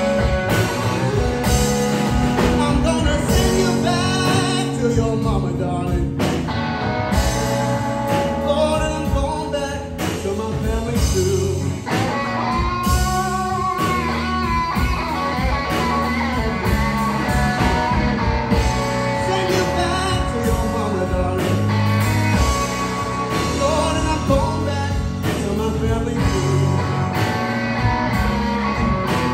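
Live blues band playing: electric guitar, electric bass and drum kit, with a male vocalist singing over them.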